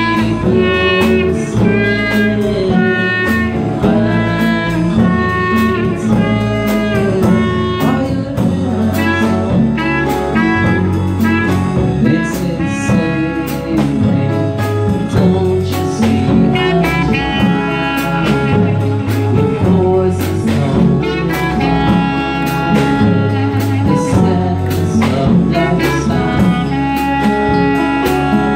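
Live band music: a clarinet plays lead melody lines over strummed acoustic guitar, electric bass and a drum kit.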